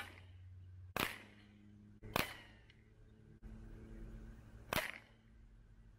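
Beeman Commander air rifle fired three times: sharp, short cracks about a second in, again just over a second later, and once more near the five-second mark.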